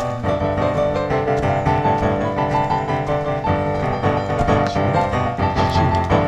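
Background instrumental music led by piano, with a steady flow of notes.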